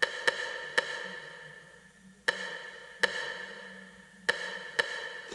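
Ensoniq TS-12 synthesizer playing back a single soloed sequencer track, a sparse percussion part with the rest of the sequence muted. About seven sharp hits in an uneven rhythm, each ringing briefly.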